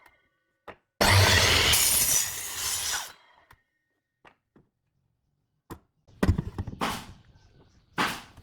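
A power tool working wood in short bursts: a cut of about two seconds from a second in, a shorter one around six seconds and a brief one near the end, with a few clicks and knocks in the pauses.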